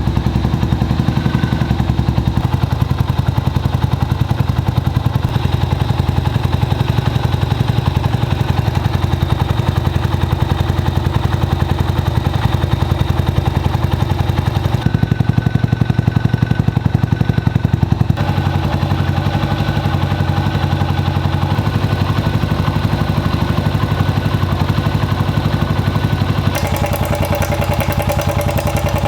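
Honda FTR223's air-cooled single-cylinder engine running at a steady idle, its tone changing abruptly a few times.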